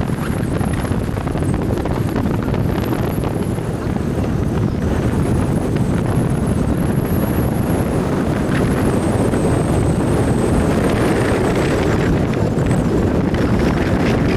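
A fast boat running at speed: steady engine noise and rushing water, with wind buffeting the microphone.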